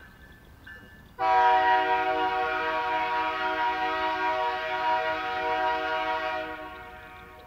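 Canadian Pacific diesel locomotive's air horn sounding one long blast as a warning at a road crossing. It starts abruptly about a second in, holds steady for about five seconds and tapers off near the end.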